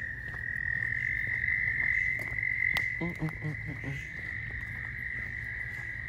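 Steady high-pitched drone of a chorus of calling bugs, holding one even pitch throughout.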